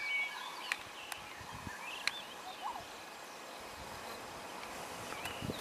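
Bush ambience: scattered short bird chirps over a steady hiss, with a few sharp clicks.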